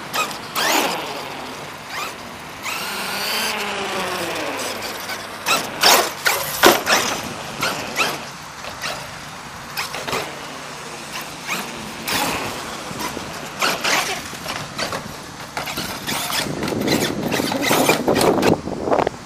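Traxxas E-Revo 2.0 RC truck driving hard. Its electric motor whines up and down in pitch as it speeds up and slows, with squealing and repeated sharp scrubbing and knocking sounds as it runs over the concrete and ramps.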